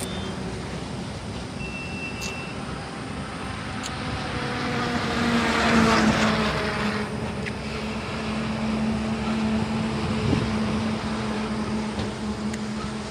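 Highway traffic: steady road noise, with a vehicle passing close by about six seconds in, its sound swelling and then fading away. A steady low engine hum carries on after it.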